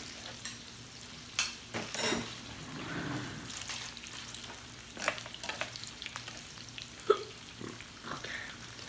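Sliced meat sizzling on a tabletop Korean barbecue grill, a steady hiss, with a few sharp clicks of metal tongs against the grill and plates, the loudest about seven seconds in.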